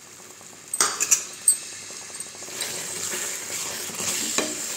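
Paneer gravy sizzling gently in a kadhai as freshly added cream is stirred through it with a wooden spatula, with a few sharp clinks about a second in.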